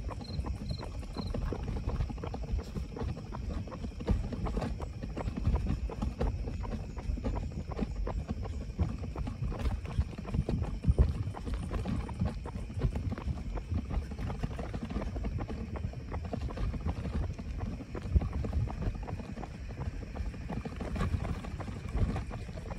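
Jogging footsteps and the knocking rattle of a pushed stroller in a steady running rhythm. A few short, high beeps sound in the first second.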